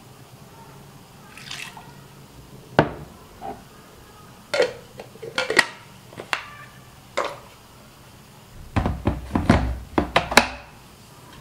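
Clicks and knocks of a plastic blender chopper cup being handled: shallot and garlic cloves dropped into it, the blade lid screwed on, then the cup set onto the blender base. The knocks come singly at first, then thicker and louder near the end as the cup is seated.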